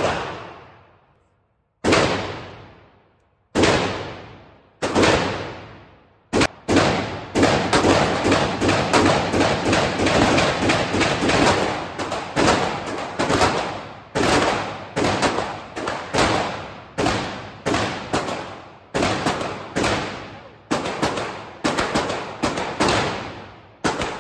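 Gunshots echoing in an indoor shooting range, each crack trailing off in the room's reverberation. A few separate shots come in the first six seconds, then shooting goes on almost without a break from about seven seconds in, several shots a second and easing to about two a second near the end.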